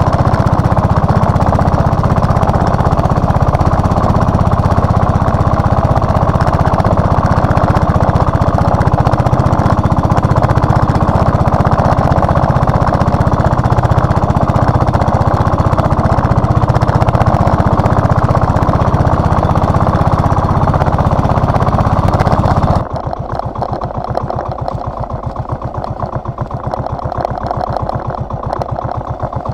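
The small engine of a motorized outrigger fishing boat running steadily at cruising speed, then throttled back about three quarters of the way in, dropping to a quieter, slower idle with evenly spaced firing pulses.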